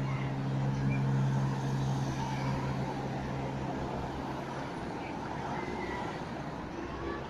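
Race convoy cars driving past one after another, engines running with a steady low hum that fades about four and a half seconds in, over general road noise.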